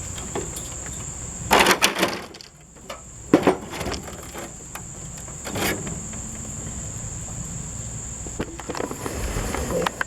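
Several sharp knocks and clatters, the loudest a single hit about a third of the way in, over a steady high-pitched hum.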